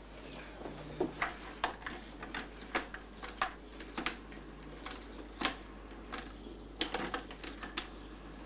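Desk telephone being handled and dialled: a run of short, sharp clicks at irregular spacing, a few a second.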